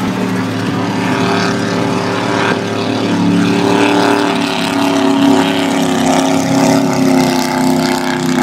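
Engines of offshore racing powerboats running at speed, a steady multi-tone drone that wavers slightly in pitch over a wash of noise, cutting in suddenly.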